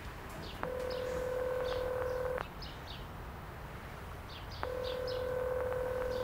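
Telephone ringback tone on a mobile phone call: two long, steady beeps of just under two seconds each, about two seconds apart, while the call rings out unanswered. Birds chirp in the background.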